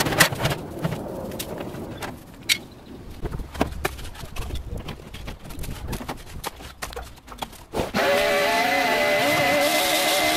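Irregular clanks, knocks and scraping as debris and loose metal are pulled out of a rusted gas grill's firebox. About eight seconds in, a shop vacuum starts abruptly and runs steadily.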